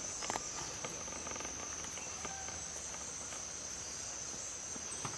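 A steady, high-pitched insect chorus, with a few faint clicks near the start.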